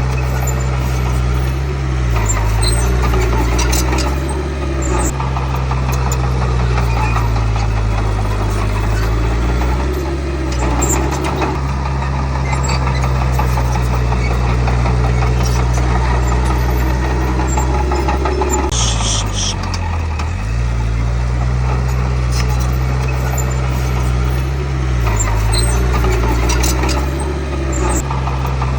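Komatsu D31P bulldozer's diesel engine running, its pitch dropping briefly and recovering several times, with a short high squeal about two-thirds of the way through.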